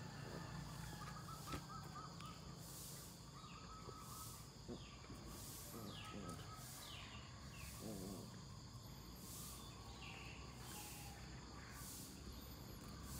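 Faint outdoor background with scattered bird chirps, and a brief wavering vocal sound from one of the wrestling puppies about eight seconds in.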